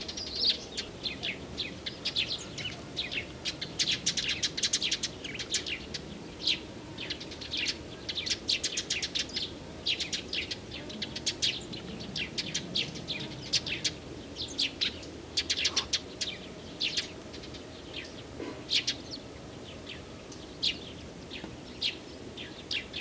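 Small songbirds chirping and singing: a dense run of short, high notes that overlap in the first half and thin out to scattered chirps later.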